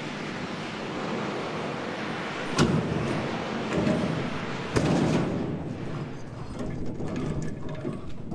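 Wheeled dolly carrying a bare car body rolling over concrete, its casters rumbling, with two sharp knocks about two and a half and five seconds in.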